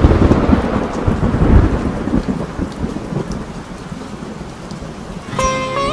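A thunderclap breaks at the start and rumbles for a couple of seconds over steady rain, then fades to rain alone. Near the end a plucked-string melody begins.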